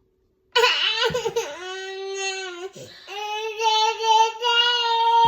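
Young child crying: long drawn-out wails starting about half a second in, with a short break around the middle before a second long wail.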